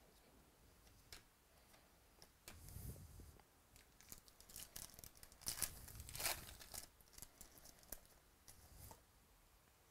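Faint tearing and crinkling of a trading-card pack's foil wrapper as it is ripped open by hand, with small clicks of the cards inside. It starts about two and a half seconds in, is loudest around the middle and stops shortly before the end.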